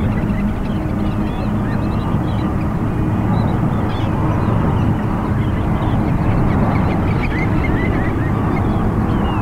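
Steady rumble of landing airliners' jet engines, with many short bird calls chirping over it throughout.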